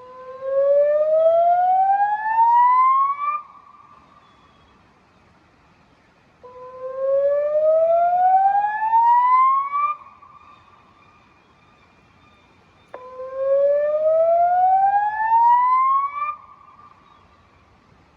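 Electronic river warning siren sounding its warning signal through Bosch LBC-3406 loudspeakers: three rising whoops, each climbing for about three and a half seconds and starting about six and a half seconds apart, each leaving a brief lingering tail before a pause.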